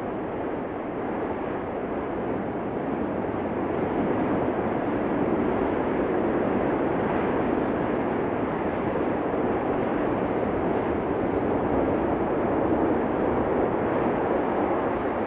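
Steady, loud rushing roar of the erupting Cumbre Vieja volcano, swelling slightly about four seconds in.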